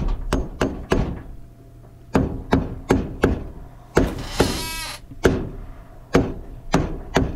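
A hammer tapping with a dozen or so light blows, four quick ones, a pause of about a second, then more at irregular intervals. A brief squeak about four and a half seconds in.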